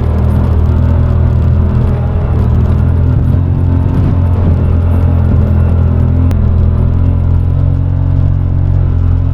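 Side-by-side UTV engine running steadily at an even speed, a loud low drone.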